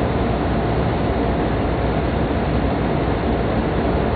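Steady running noise of a MAX double-decker Shinkansen heard inside the upper-deck cabin: an even rumble and rush from the wheels on the rails and the air outside, without change.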